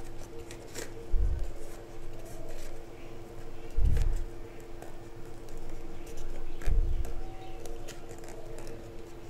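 A thin paper strip being rolled and pressed between fingers: faint paper rustling and small clicks, with dull low thumps about every three seconds over a steady hum.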